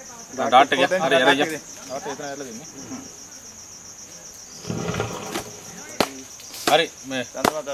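Steady high-pitched insect chirring with a rapid pulse, with a short rushing noise about five seconds in and a few sharp clicks near the end.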